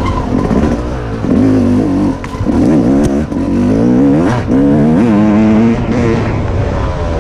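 Dirt bike engine revving up and falling back again and again as the rider works the throttle along a rough trail.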